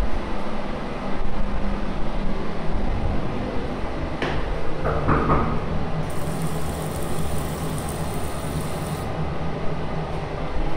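Water from a bathroom sink faucet runs into the basin as a hiss for about three seconds, starting about six seconds in and stopping abruptly. A steady low rumble runs underneath throughout.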